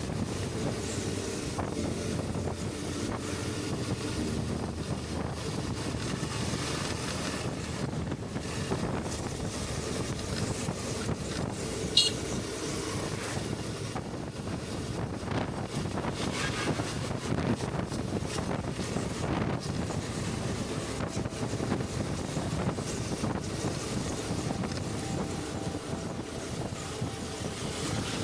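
Steady wind rush on the microphone of a rider on a moving Suzuki V-Strom 650, with the motorcycle's V-twin engine running underneath and sounding muffled. One short sharp click about twelve seconds in.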